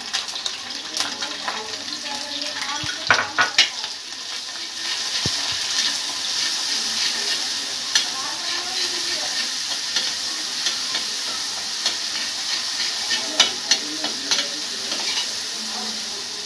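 Mixed spice masala sizzling as it fries in hot oil in an iron kadhai, stirred with a metal ladle; the sizzle swells about five seconds in, with a few sharp clicks of the ladle against the pan.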